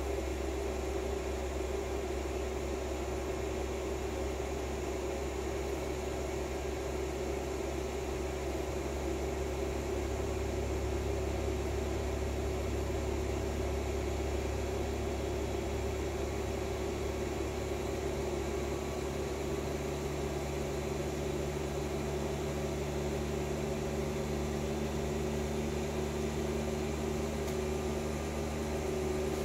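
Steady machinery hum with a constant tone running through it; the deepest part of the hum changes character about ten seconds in and again near twenty seconds.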